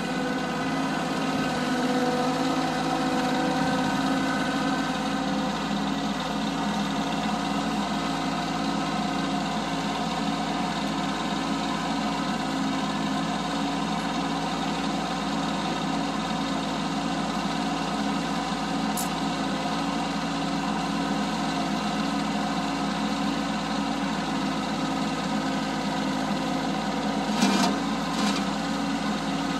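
Diesel engine of a 2023 Bobcat CT1025 compact tractor running at a steady speed as the tractor drives, with a couple of short clunks near the end.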